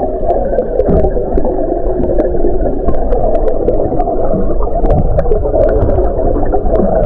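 Muffled underwater rumble and gurgling as heard by a submerged camera in its housing, with many scattered sharp clicks over the top.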